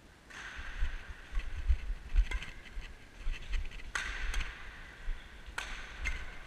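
Badminton rally heard from a player's body-worn action camera: several sharp cracks of racket on shuttlecock, the strongest about two-thirds of the way through, over a jolting low rumble from the camera being shaken as the player moves.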